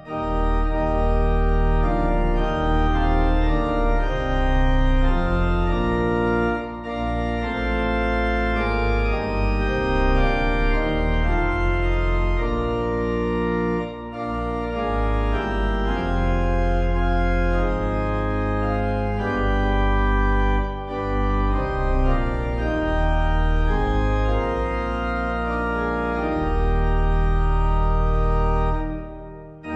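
Organ music: sustained chords over a deep held bass, the chords changing every second or two, fading out near the end as one piece or phrase closes.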